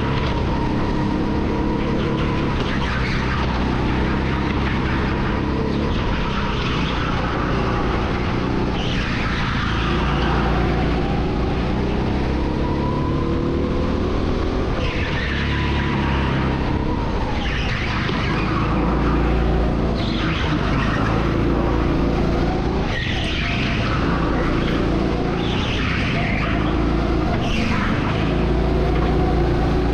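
Go-kart engine heard from the driver's seat, its pitch rising and falling over and over as the kart speeds up along the straights and slows for the corners, with the tyres squealing in the bends.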